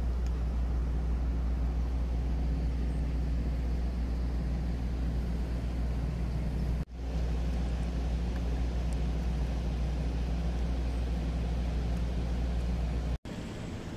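Steady low drone of a large truck's engine idling, with two short breaks, about seven seconds in and near the end.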